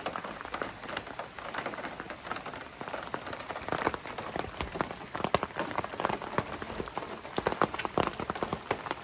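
Rain falling, with many irregular sharp drop taps close by over a steady hiss.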